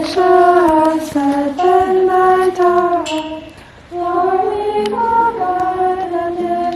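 Girls singing a slow melody, with held notes stepping from one pitch to the next and a short break about three and a half seconds in.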